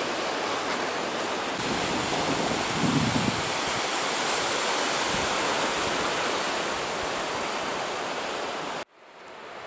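Sea surf washing among shoreline rocks, a steady rush of noise, with wind on the microphone and a brief low gust about three seconds in. The sound cuts off abruptly near the end and then fades back in.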